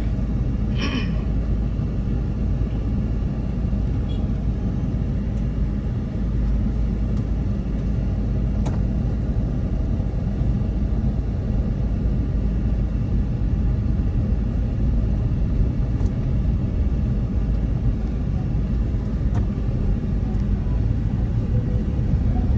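Steady low rumble of a moving car's engine and tyres on the road, heard from inside the cabin, with a few faint clicks.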